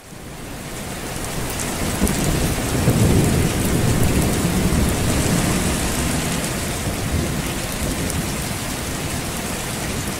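Rain and rolling thunder as a steady storm. It fades in over the first two seconds, and the low thunder rumble is heaviest a few seconds in.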